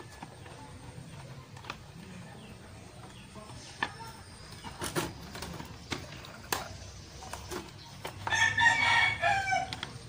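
A rooster crows once near the end, about a second and a half long, the loudest sound here. Before it come a few light, sharp clicks and taps as a screwdriver drives screws back into the electric fan's plastic motor housing.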